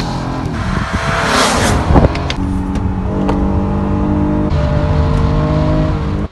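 Race car engine sound at high speed: a car rushes past about one and a half seconds in, then a steady high-revving engine note holds for several seconds and cuts off suddenly.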